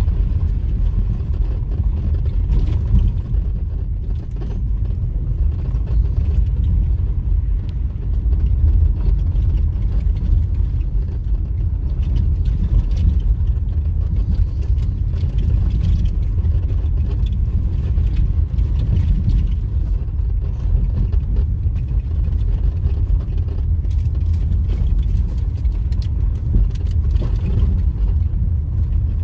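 A vehicle driving along a road, heard from on board: a steady low rumble of engine and road noise, with scattered light rattles.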